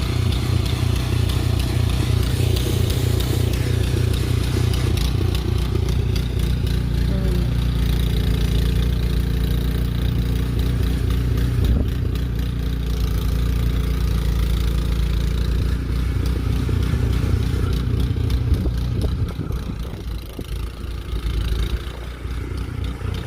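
An engine running steadily with a low rumble, easing off and growing quieter about nineteen seconds in.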